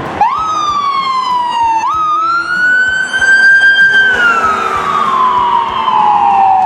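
A siren wailing. Its pitch jumps up, sinks, jumps up again and climbs slowly for a couple of seconds, then falls slowly through the rest.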